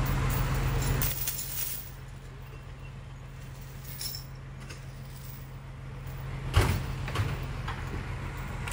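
A vehicle engine running steadily with a low hum, louder for the first second. About six and a half seconds in there is one sharp bang, the loudest sound, and a lighter knock just after.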